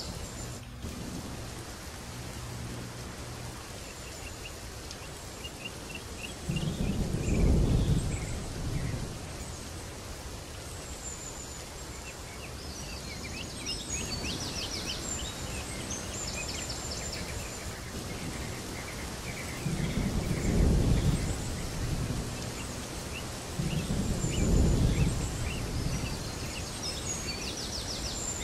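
Steady outdoor ambience with small birds chirping and trilling on and off, broken three times by a deep rumble a second or two long.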